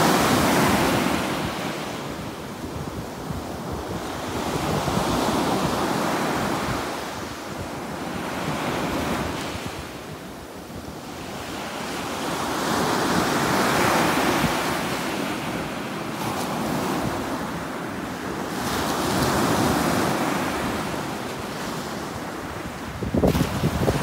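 Ocean surf washing onto a beach, the noise of breaking waves rising and falling about every five seconds. Wind buffets the microphone with low rumbles near the end.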